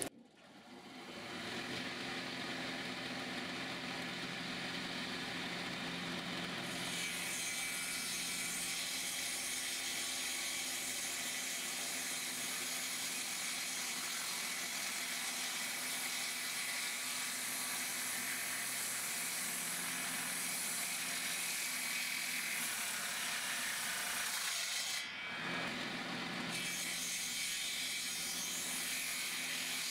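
Old Soviet-era circular saw running steadily with a carbide-tipped blade, sawing hardwood firewood logs. The sound builds up over the first two seconds and dips briefly about 25 seconds in.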